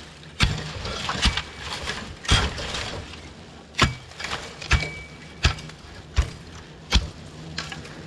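Sharp knocks or strikes, about nine in all, roughly one a second, over a faint, low steady buzz.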